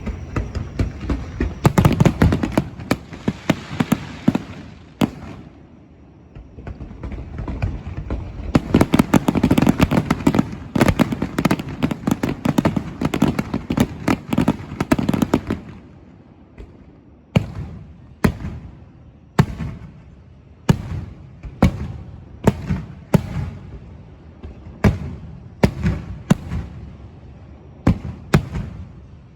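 Aerial fireworks bursting: two dense volleys of rapid crackling bangs, then a run of single booms about one a second.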